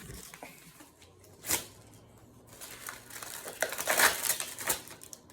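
Packaging crinkling and tearing in hand as the next package of Pokémon cards is opened. There is a short rustle about a second and a half in, and denser, louder crinkling over the last couple of seconds.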